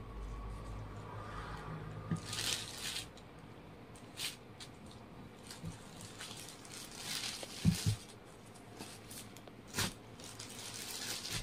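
Silk-blend saree fabric being handled and unfolded: intermittent rustling of cloth, with a soft thump about two-thirds through and a sharp tap a couple of seconds later.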